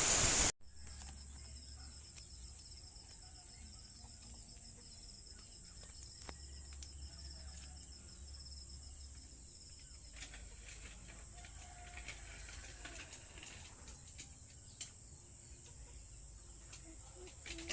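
A steady high-pitched insect chorus with a faint low rumble beneath it, and a few faint chirps and ticks.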